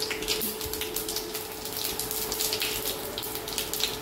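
Whole cumin seeds, bay leaves, dried red chillies and whole garam masala sizzling in hot oil in a kadhai, a steady hiss with frequent small crackles: the spices being tempered for the curry's chhaunk.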